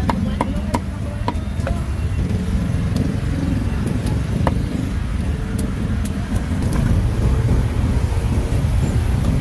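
Steady low rumble of city street traffic, with a few sharp knocks in the first two seconds and one more about four and a half seconds in.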